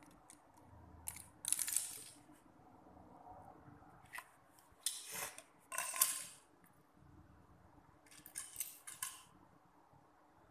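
Small plastic Lego pieces and minifigures clicking and rattling as they are handled and picked from a loose pile on a hard tiled floor, in three short clusters of clatter with a few single clicks between.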